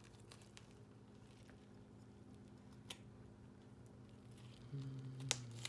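A knife and fork cutting a piece of baked chicken on a plate: a few faint clicks against the plate over a steady low hum.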